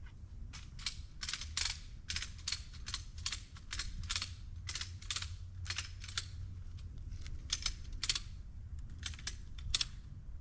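Footsteps crunching through dry leaves and forest litter, an uneven run of short crackly steps about two a second.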